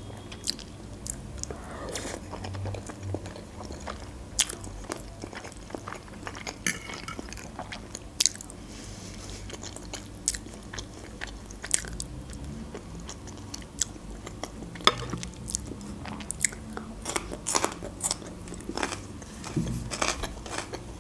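Close-up chewing and mouth sounds of someone eating khinkal, soft boiled dough with minced meat, with frequent small sharp clicks and smacks from the mouth.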